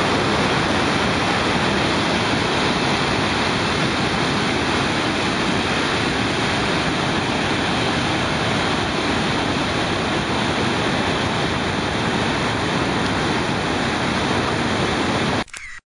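Flood-swollen Credit River rushing down a falls as turbulent whitewater, a loud steady wash of water noise that cuts off suddenly near the end.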